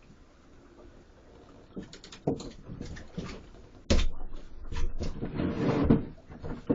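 Knocks and clatter of handling on a small fishing boat: a few sharp clicks, a loud thump about four seconds in, then a couple of seconds of busy rattling and knocking.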